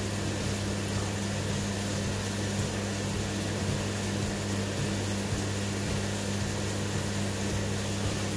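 Steady low electrical hum with a constant hiss underneath, unchanging throughout: background noise from running equipment.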